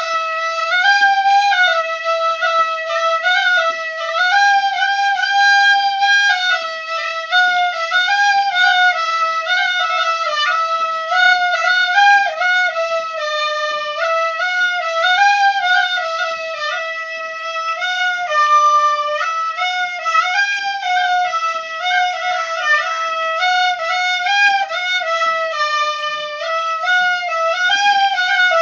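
Instrumental music: a single high melody line with rich overtones, played in held notes joined by slides and quick ornaments, with no accompanying voice.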